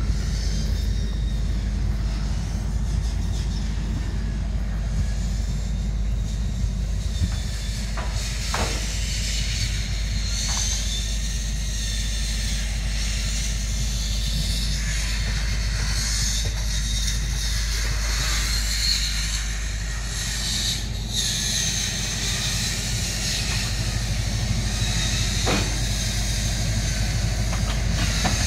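Steady low diesel engine rumble, with a hiss above it and a few sharp metal clanks from ride parts being handled.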